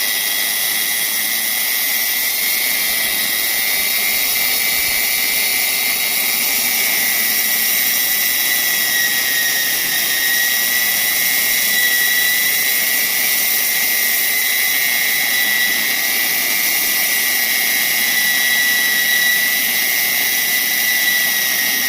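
Electric core drill motor running continuously with a steady high-pitched whine that wavers only slightly in pitch.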